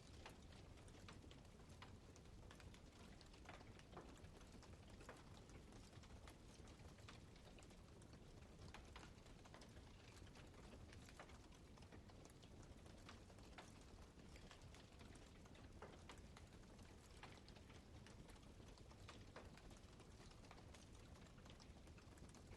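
Wood campfire crackling faintly: irregular sharp pops and snaps over a low steady rumble.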